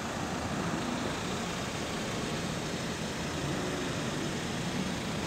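Steady street noise with a motor vehicle's engine running nearby.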